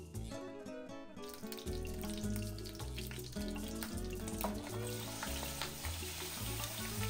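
Ghee sizzling in a hot frying pan, starting about a second in and growing louder and denser about five seconds in as raw chicken pieces are slid into the pan. Background music plays throughout.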